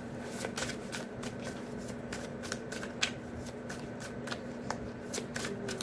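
A deck of tarot cards being shuffled by hand: an irregular run of quick, soft card snaps, several a second.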